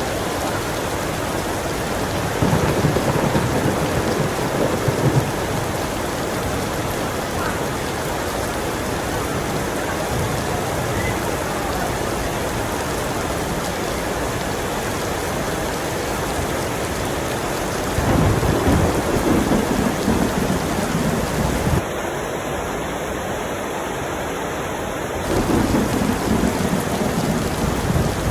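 Heavy rain falling steadily, with thunder rumbling three times: about two seconds in, around eighteen seconds in, and again near the end.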